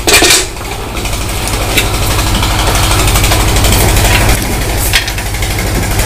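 An engine or motor running steadily with a low, evenly pulsing throb, with a short loud rush right at the start.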